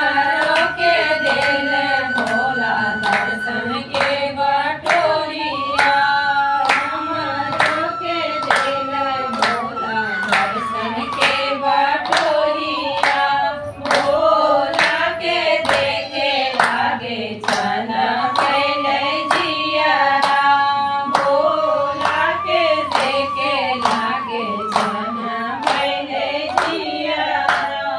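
A group of women singing a Bhojpuri devotional song to Shiva (a bhajan) in unison, with a steady rhythm of hand claps keeping time.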